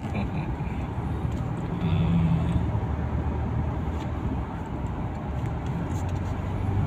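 Car cabin noise while driving on a highway: a steady low rumble of engine and tyres on the road.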